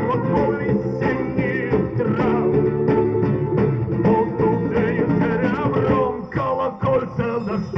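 Ethno-folk band playing live, an instrumental passage between sung lines: a steady accompaniment with guitar and a wavering melody line on top, briefly thinning out near the end.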